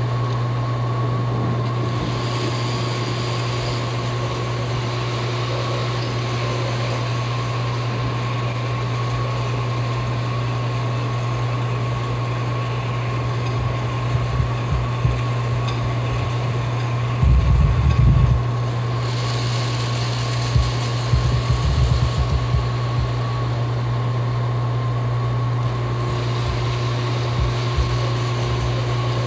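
A motor-driven kinetic sculpture that swings a model jet on a rod gives a steady low mechanical hum with a thin steady whine above it. A little past halfway come several low knocking rumbles, the loudest lasting about a second.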